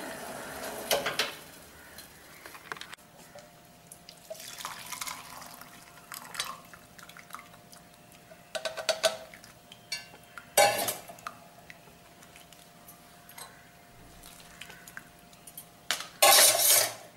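Kitchen vessels and a strainer clinking and knocking as a just-boiled herbal decoction is strained, with short bursts of pouring liquid, the loudest near the end.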